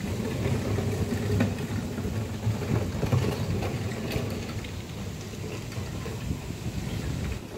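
A domestic cat purring steadily, a low rumble heard close up while its chin and throat are scratched, with a few soft rustling clicks from the fur being rubbed.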